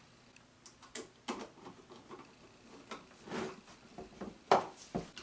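Scattered small clicks and taps of a screwdriver and screws on 3D printer kit parts while fasteners are being tightened, with the loudest knock about four and a half seconds in.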